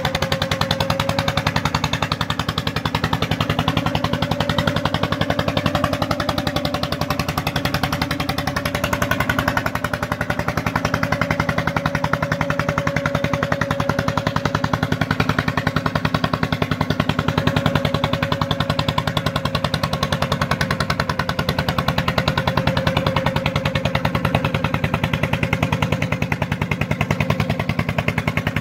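Engine of a boat-mounted earth-bank drilling machine running steadily, with a fast even beat and a steady whine on top.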